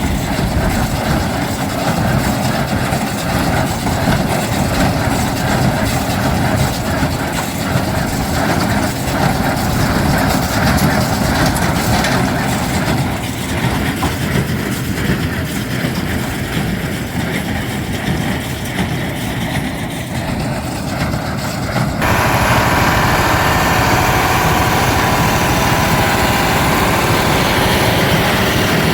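John Deere 4055 diesel tractor running steadily while it pulls a working John Deere 338 square baler. About 22 seconds in the sound shifts abruptly to a louder, brighter, steadier noise.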